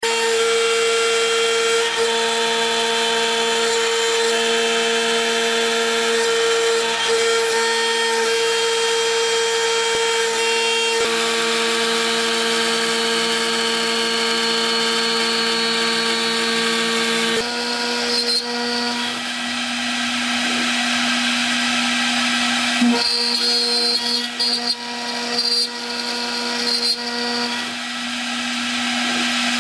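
CNC spindle milling aluminium with a 4 mm flat end mill, taking 1 mm deep passes: a steady whine with cutting noise over it. About 17 seconds in the tone shifts, and the level then wavers unevenly as the cut goes on.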